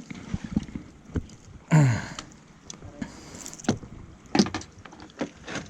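Irregular knocks and clicks on a small wooden fishing boat as a freshly caught fish is handled aboard. About two seconds in, the loudest sound is a brief call that falls in pitch, and a second sharp one comes a little after halfway.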